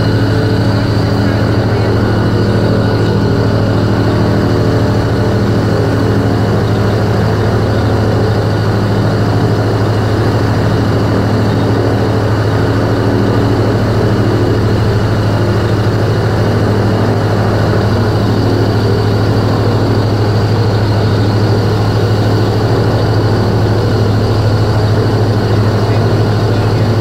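Airboat's engine and propeller running at a steady speed: a loud, constant mechanical sound with a strong low hum.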